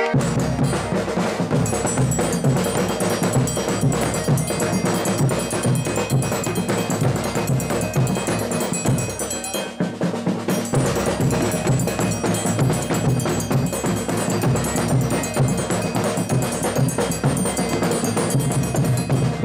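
A folia drum section beats several large drums with sticks in a fast, steady, driving rhythm. The low drum strokes drop out briefly about ten seconds in, then resume.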